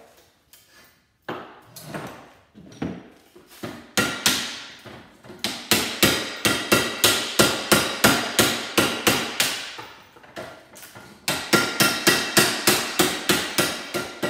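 Hammer blows breaking the motor free from an old Kirby vacuum cleaner's housing held at a bench vise. A few single strikes, then quick runs of about three blows a second with a metallic ring, a short pause between the runs.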